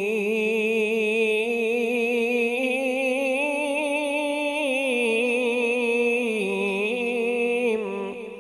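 A male qari reciting the Quran in the drawn-out tajweed style into a microphone. He holds one long vowel on a single breath with a wavering vibrato. The line climbs slowly, steps down twice and breaks off about eight seconds in.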